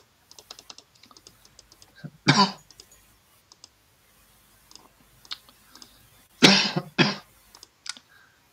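A person coughing: one cough about two seconds in and two close together near the end, over faint computer keyboard typing and clicking.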